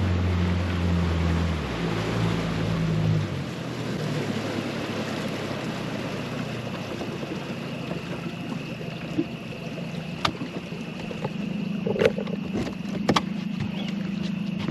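A boat motor runs steadily, eases down about two seconds in and drops away near four seconds. The boat then drifts with a steady hiss of water and wind, and a few sharp knocks come near the end.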